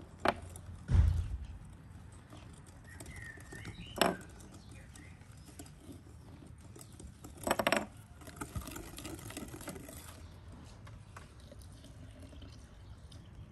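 A few sharp clinks of a small wire whisk against a glass mixing bowl, a single one about a second into the sound, another near four seconds, and a quick run of several near the middle. A low thump comes about a second in, and a faint bird chirp comes a few seconds in.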